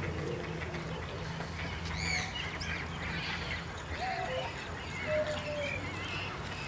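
Birds chirping and calling, with a quick run of high rising-and-falling whistles about two seconds in and scattered shorter chirps after it, over a steady low hum.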